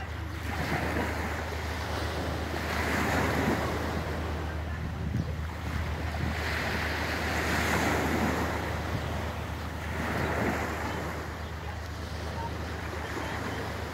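Small waves breaking and washing onto a pebble beach, the surf swelling and falling back every few seconds, with wind buffeting the microphone as a steady low rumble.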